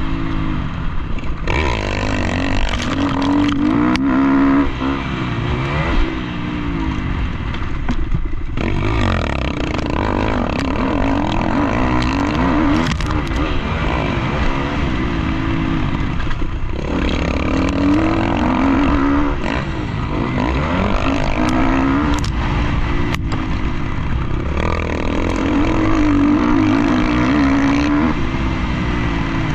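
Motocross dirt bike engine revving hard and backing off again and again, its pitch climbing and dropping every few seconds as the bike accelerates out of corners and over jumps, heard from a helmet-mounted camera. A few sharp knocks and clatters cut through.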